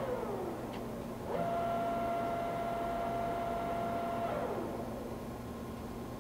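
TOS SN40C engine lathe's geared headstock running at high spindle speed with a steady whine. It winds down at the start, spins back up about a second in, holds steady for about three seconds, then winds down again as the spindle is stopped.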